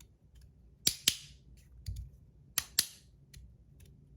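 Two-click 3D-printed magnetic haptic slider fidget being slid back and forth. Each slide gives a pair of sharp plastic clicks, twice in all, about a second and a half apart, with faint ticks between.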